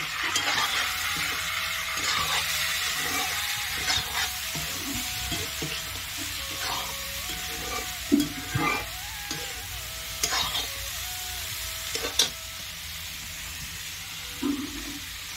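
Chicken and bamboo shoot frying in a black wok with a steady sizzle, while a metal spatula stirs and scrapes the pan, giving scattered sharp knocks against the metal.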